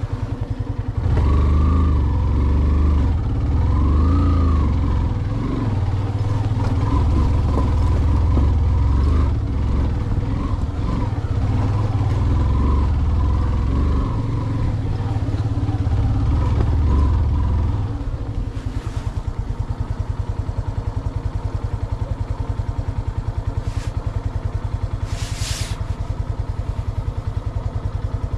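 Motorcycle engine working hard on a rough track, its pitch rising and falling as the throttle is opened and eased off, then settling to a lower, steadier running about two-thirds of the way through. Short bursts of hiss come twice near the end.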